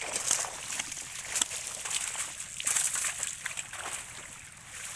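Pond water sloshing and splashing in uneven bursts as people wade and grope through it by hand for fish.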